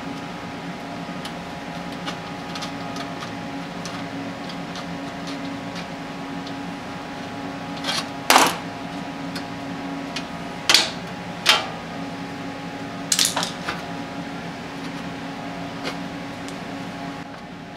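Aviation snips cutting the thin sheet-steel flange of an engine valley pan: small snipping clicks, with a cluster of four sharp metallic clanks around the middle, over a steady shop hum.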